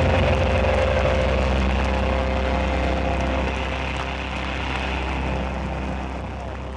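A rock band's amplified sound ringing out at the end of a song as a loud, low rumbling drone with a held tone above it, slowly fading away.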